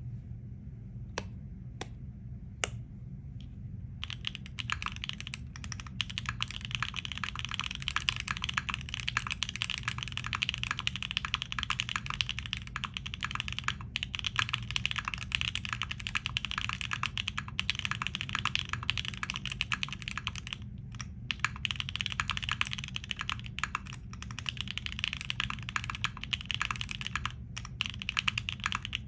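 Typing on a Singa Unikorn R2.2 custom mechanical keyboard with Alpaca linear switches, an FR4 plate and DCS ABS keycaps. A few single keystrokes come first, then fast, continuous typing from about four seconds in.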